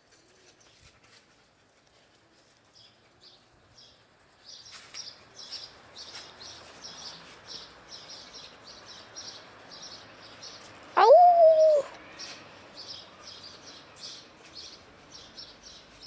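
Young German shepherd panting close behind an iron gate, in quick rhythmic puffs about two to three a second that start about four seconds in. About eleven seconds in comes one brief, louder cry that sweeps up sharply and then holds a steady pitch.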